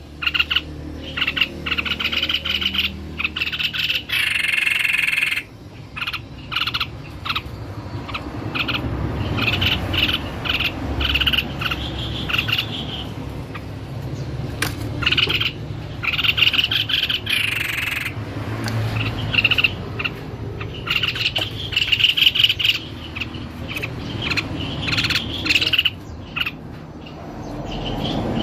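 Tepus leher putih babbler singing: repeated phrases of rapid high chattering notes, broken by short pauses.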